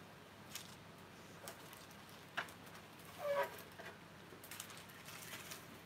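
Quiet rummaging through craft supplies: scattered light clicks and rattles, with a sharper click about two and a half seconds in and a brief clatter just after three seconds.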